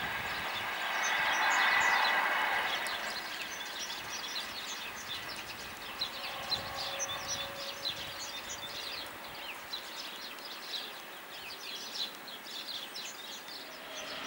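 Berlin S-Bahn class 480 'Toaster' electric train pulling away, its running sound swelling briefly and then fading out over the first three seconds. After that, small birds chirp over and over.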